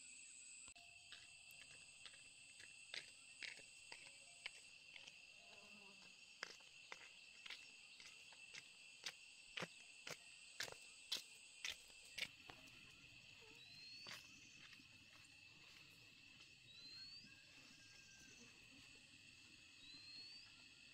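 Faint, steady high-pitched drone of insects over a rural field. For the first twelve seconds a run of sharp clicks comes faster and louder. After that, a bird gives three short rising chirps about three seconds apart.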